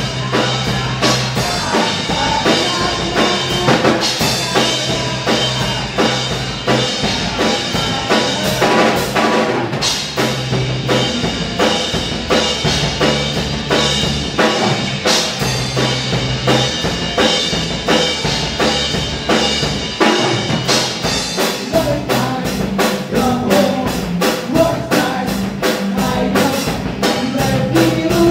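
Live rock band playing: electric guitar, bass guitar and a Pearl drum kit. In the last few seconds the drums settle into even hits, about four a second.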